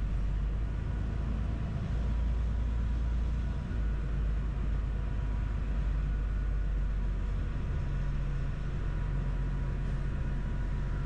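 Truck engine running at low speed as the truck drives slowly out of a yard, heard from inside the cab: a steady low rumble.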